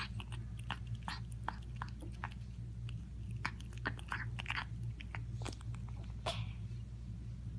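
A cat eating: irregular crisp crunching and chewing clicks, several a second, over a steady low hum.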